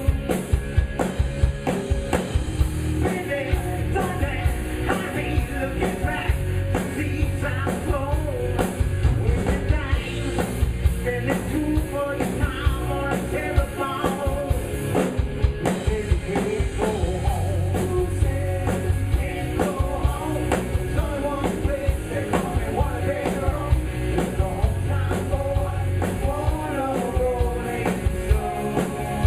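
A live rock band playing a song, with a steady, busy drum beat and a singing voice over the instruments.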